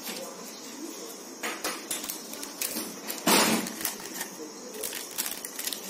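Butter paper (baking parchment) rustling and crinkling as it is pressed against the inside wall of an aluminium cake tin, with light clicks and taps of fingers and paper on the metal. The loudest rustle comes a little over three seconds in.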